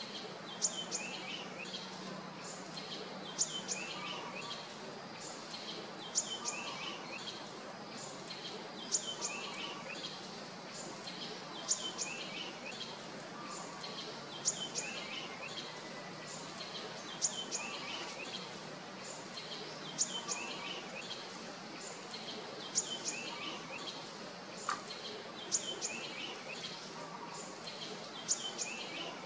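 A bird repeating the same short song phrase about every three seconds. Each phrase is a couple of sharp, high notes followed by a quick run of lower, falling chirps. Beneath it is a steady background hiss.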